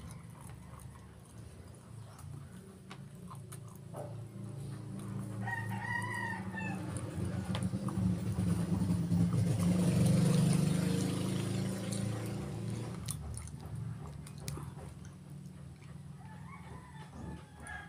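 A rooster crowing twice, about six seconds in and again near the end. In between, a low rumble swells and fades.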